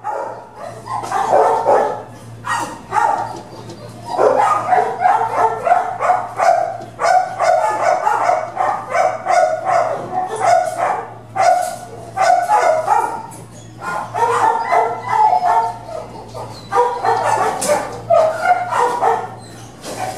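Shelter dogs in their kennels barking, bark after bark with only brief pauses, over a low steady hum.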